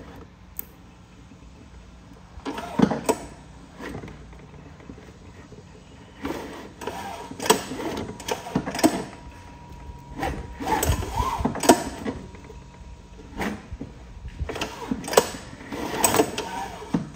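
Horizontal-shaft push mower's engine and belt-driven deck pulley turned over by hand in about five short pulls, each a second or so of mechanical whirring and rattling. The engine does not fire.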